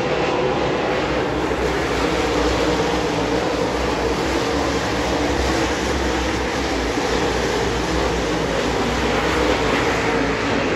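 A pack of dirt late model race cars running at speed around a dirt oval: a loud, continuous, blended engine noise from several V8s with no gaps, heard from the grandstand.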